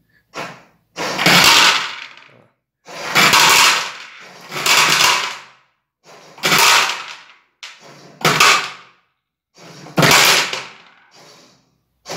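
A homemade automatic pet feeder's 12 V motor is switched on and off by hand in about seven bursts of roughly a second each. Each burst turns the belt-driven plate of PVC cups loaded with dry dog food a step.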